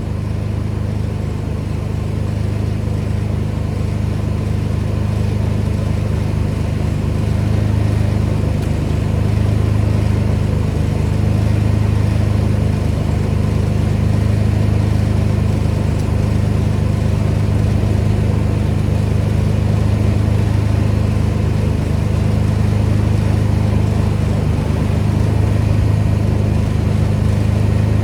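Pressure washer's engine running steadily at a constant speed, with a haze of spray noise above it.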